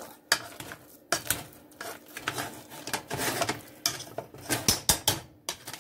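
Hand-held wire potato masher working boiled potatoes in a metal saucepan: soft squishes and repeated irregular knocks and scrapes of the masher against the pot, about two a second.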